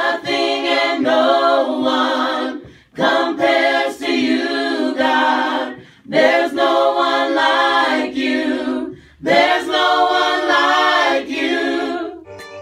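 Voices singing a worship song unaccompanied, in four phrases with short breaks between them.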